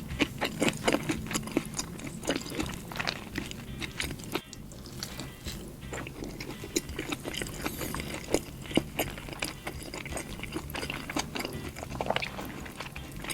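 Close-miked chewing of a burger: irregular wet clicks and smacks of the mouth, with a few louder bites.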